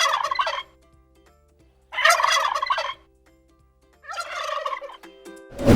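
Turkey gobbling: three rattling gobbles about two seconds apart. A short loud falling sweep comes near the end.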